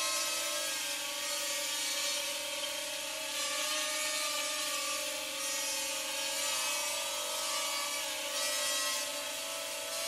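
Parrot Rolling Spider minidrone's four small propeller motors whining steadily as it hovers, the pitch wavering slightly as it is steered.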